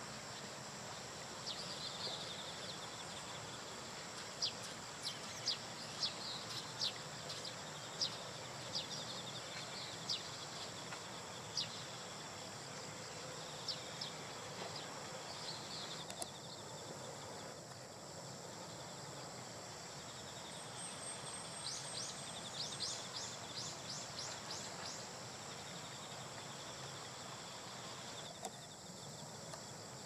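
Steady outdoor hiss with a thin, constant high tone, over which a small bird gives short, sharp high-pitched chirps: single calls about once a second through the first dozen seconds, then a quick run of them about 22 seconds in.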